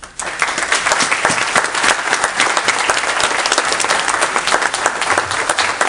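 Audience applauding loudly, the clapping breaking out suddenly just after the start and holding dense and steady.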